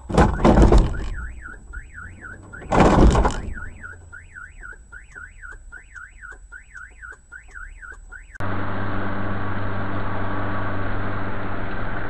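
Two loud crashes of a car collision, one right at the start and another about three seconds in, followed by a car alarm wailing, its tone rising and falling about twice a second, until it cuts off about eight seconds in. Then steady road and engine noise from inside a moving car.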